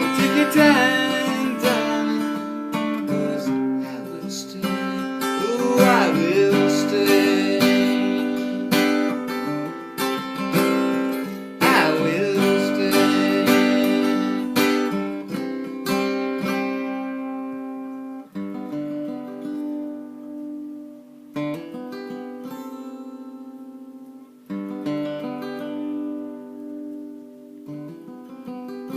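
Acoustic guitar strummed as the song's instrumental ending, busy for the first half, then thinning to single ringing chords with short pauses between them and growing quieter.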